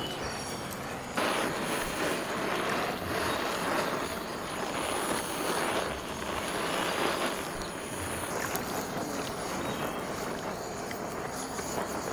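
Handheld butane blowtorch hissing as its flame melts cheese slices on burgers, the hiss jumping up sharply about a second in and going on steadily.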